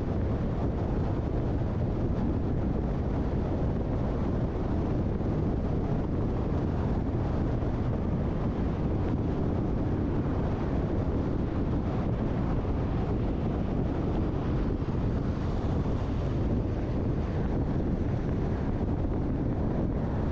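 Steady road and wind noise from a car travelling at speed: an even, low rumble that does not change.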